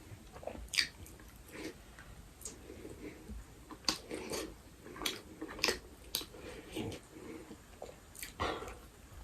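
A person chewing and biting food close to the microphone, with irregular wet smacks and clicks of the mouth.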